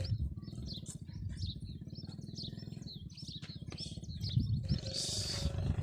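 Small birds chirping again and again over a low, steady, pulsing rumble, which grows louder near the end.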